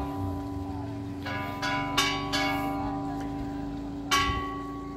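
Church bells being rung by striking: a quick run of four strokes a little over a second in, then one more about four seconds in, each note ringing on over the hum of the previous ones.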